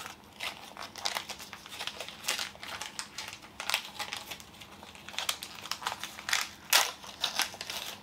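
Crinkly plastic packaging being handled and opened, giving irregular crackles and rustles that run on without a break.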